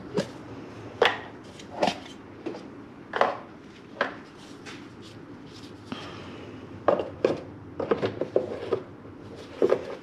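Irregular hard clicks and knocks, about ten of them, as parts are handled and set down in a car's engine bay during intake and mass airflow sensor work.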